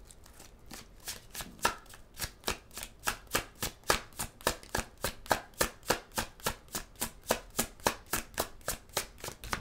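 A tarot deck being shuffled by hand: a steady run of crisp card slaps, about four a second, starting about a second in.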